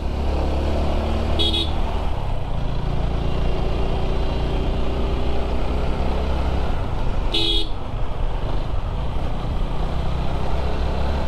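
Motorcycle engine running at road speed under steady wind rush on the microphone, with two short horn beeps, about a second and a half in and again about six seconds later.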